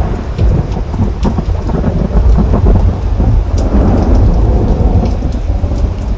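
Thunder rolling in a long, loud low rumble over steady rain during a tropical thunderstorm, with raindrops ticking sharply above it; the rumble eases near the end.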